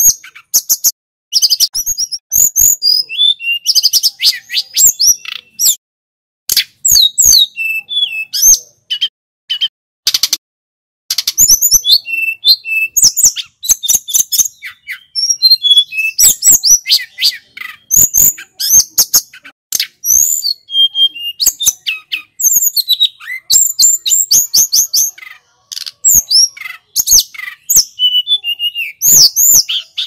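Caged tledekan gunung, a blue flycatcher, singing a fast, varied song of high whistled notes and trills in phrases broken by short pauses.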